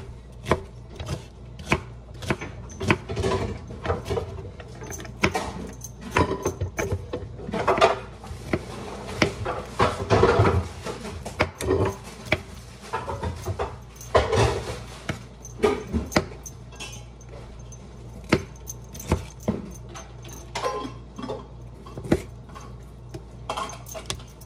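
Kitchen knife dicing a red bell pepper on a wooden cutting board: quick, uneven taps of the blade on the wood, a few a second, with busier bursts of chopping partway through.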